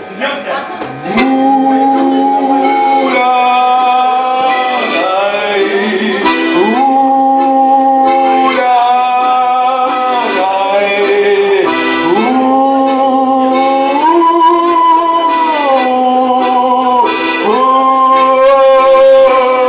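A band playing live music: sustained chords, held steady and changing every second or two.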